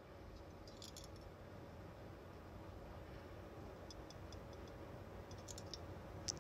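Faint, scattered clinks of metal rings and a bangle knocking together as the hand moves, over a low steady hum, with a sharper click near the end.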